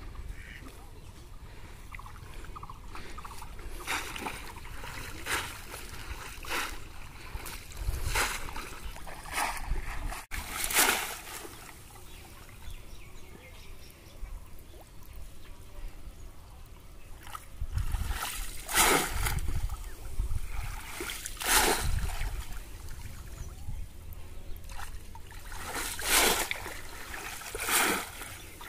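Water splashing in irregular bursts, about ten in all, as a bamboo polo basket trap is pushed down into shallow river water and a hand splashes about inside it to feel for fish.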